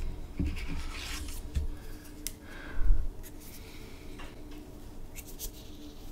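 Hands rubbing and rustling on paper and handling a plastic felt-tip marker, with small clicks and a heavier thump on the desk about three seconds in; near the end the marker's cap is being twisted and pulled.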